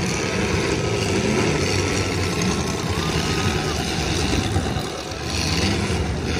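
Demolition derby car engines running loud and revving up and down as the cars push against each other.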